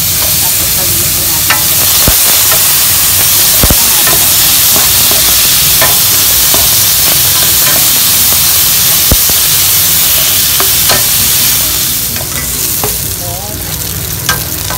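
Pork pieces frying in their own rendered fat in a pan, sizzling loudly and steadily, with a few sharp clicks. The sizzle eases a little about three seconds before the end.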